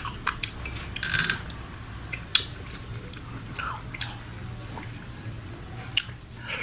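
Eating aloe vera dessert: chewing, with a few sharp clicks of a spoon against a bowl spaced a second or so apart.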